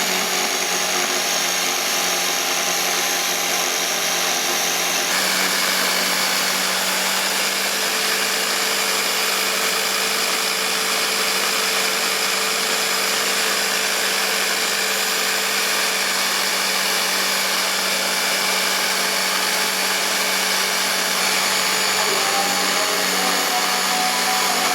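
Electric power tool running continuously, working the steel bolt, with a slight change in its tone about five seconds in.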